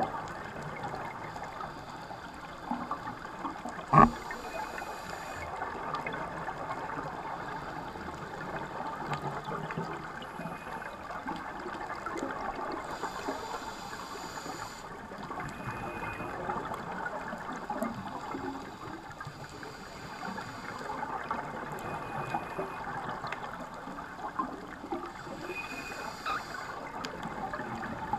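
Underwater reef sound through a GoPro housing: a steady crackling hiss with the diver's scuba regulator breaths and bubbling coming round every ten seconds or so. One sharp knock about four seconds in.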